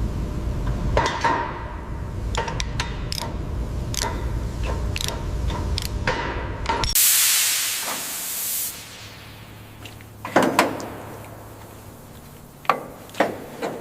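Workshop sounds: a low rumble with scattered metal clicks and knocks, then a loud hiss of spray or air for about a second and a half, about seven seconds in. After the hiss cuts off, a few sharp clacks follow near the end.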